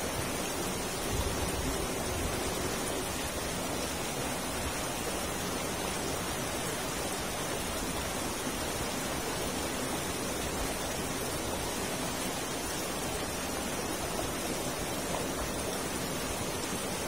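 River rapids rushing steadily over rocks, an even noise of running water with no breaks.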